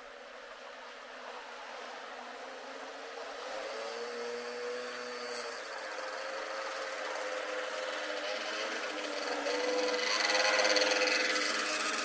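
A motor scooter's small engine buzzing with a wavering hum, growing louder as it approaches and loudest about ten seconds in, over a steady hiss of surf.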